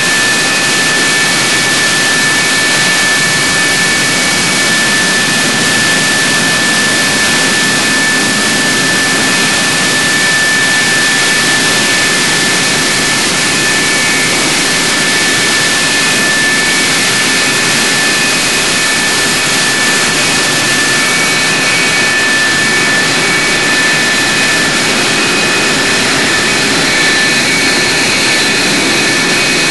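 F-104 Starfighter's General Electric J79 turbojet running steadily on the ground, a loud, even rush with a high steady whine over it, echoing inside a hardened aircraft shelter.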